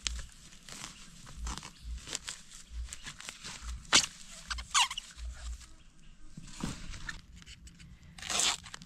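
A knife cutting and prying a wild bamboo shoot out at its base, with dry bamboo leaves and husk sheaths crunching and crackling, and a few sharp cracks. The loudest crack comes about four seconds in.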